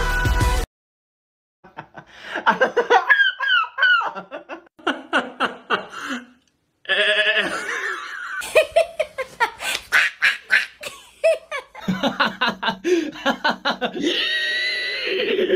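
A man laughing hard in long fits, breaking into rapid runs of short bursts and high wavering squeals.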